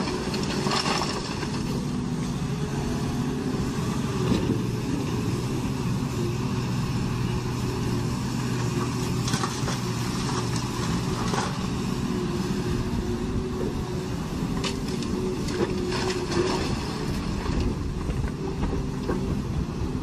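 Heavy diesel engines of excavators and a dump truck running steadily, with a few sharp clatters of river rock dropping from an excavator bucket into the dump truck's steel bed.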